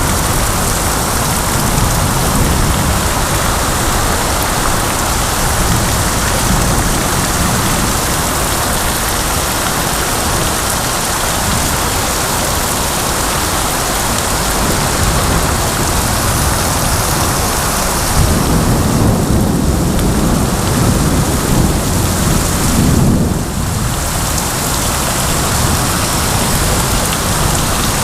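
Heavy rain pouring steadily in a thunderstorm, with low rumbles of thunder swelling under the rain, the strongest about two-thirds of the way through.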